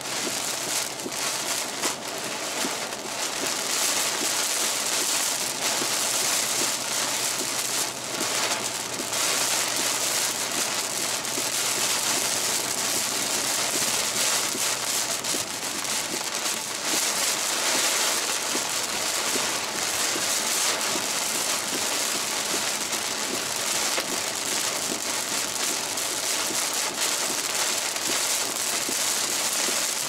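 Heavy, wind-driven rain pelting a moving car's windshield and body, heard from inside the cabin as a loud, steady, dense hiss.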